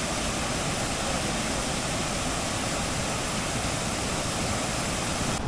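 Monsoon-swollen river water pouring over a waterfall, a steady rush of water with no breaks.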